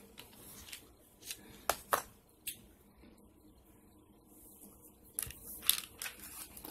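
Medicine bottles being handled: a few sharp clicks and rattles, then a cluster of clicking and rustling about five seconds in as a bottle cap is worked open.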